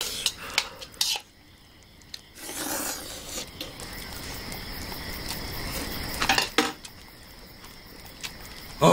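Someone eating ramen: chopsticks clink against a small metal pot several times in the first second and twice more about six seconds in. Between them, about two and a half seconds in, there is a noisy slurp of noodles lasting about a second.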